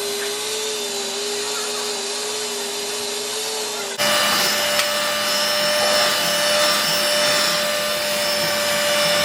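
Small electric mixer motor whipping coffee until it is fluffy. It runs with a steady whine, then about four seconds in it switches to a higher, louder speed.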